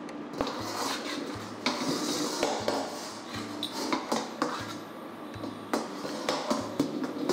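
Irregular clinks and knocks of a pan and metal kitchen utensils on the stove, with a soft hiss during the first few seconds.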